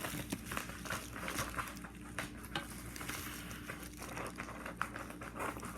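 Parcel packaging being handled and opened, crinkling and rustling with scattered small irregular clicks.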